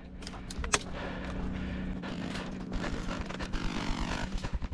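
Clothing and gear rustling and scraping close to a body-worn camera's microphone, with a few sharp clicks in the first second.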